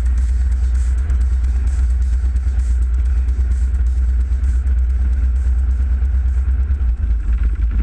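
Piston engine and propeller of a single-engine light aircraft running while it taxis, heard inside the cockpit as a loud, steady low drone.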